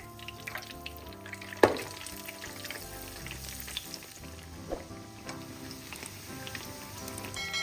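Breadcrumb-coated bread and chicken pockets shallow-frying in a generous amount of hot oil in a pan, sizzling and crackling. A sharp knock about a second and a half in, and a smaller one midway.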